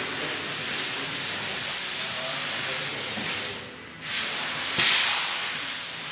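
Steady, fairly loud hiss, like air or spray noise, that drops out for about half a second around three and a half seconds in and then resumes, with a single sharp click just before five seconds in.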